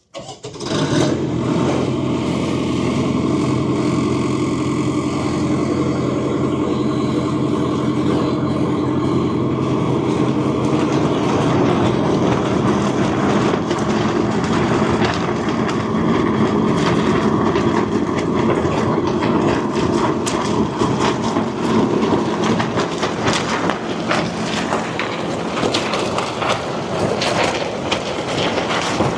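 A high-power blower drives wind of about 60 mph against a trekking pole tent, heard from inside: a loud, steady rush of air over a low mechanical hum. The nylon fly and inner tent flap and rattle hard, and the flapping grows busier and more irregular from about halfway through.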